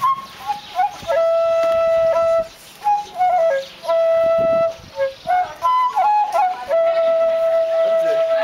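Solo flute playing a slow melody: three long held notes joined by short, quick ornamented runs.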